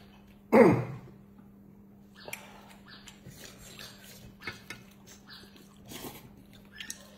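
Close-up eating sounds: chewing, slurping and small clicks of chopsticks against porcelain bowls. About half a second in there is one loud, short vocal burst that falls in pitch.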